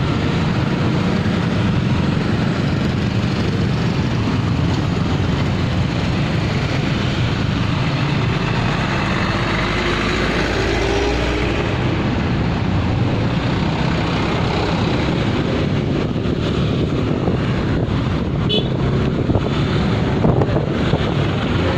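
Dense road traffic heard from a motor scooter crawling through a jam: the scooter's own engine plus motorcycles, trucks and a bus running close by, a steady mix, with a few short clicks near the end.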